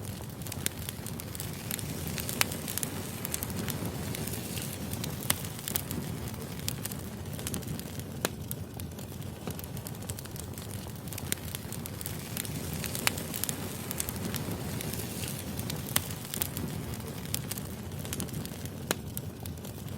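Wood fire burning, with a steady low rumble and frequent irregular crackles and sharper pops of the logs.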